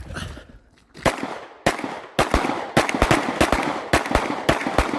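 Gunfire: a shot about a second in and another half a second later, then a rapid, irregular string of shots, several a second.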